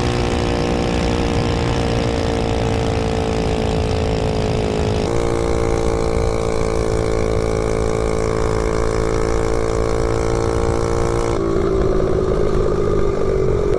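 98cc Coleman 3 hp single-cylinder mini bike engine, governor removed, running flat out at a high steady speed, with wind rushing over the microphone. The engine note holds almost level and jumps slightly twice where the recording is cut.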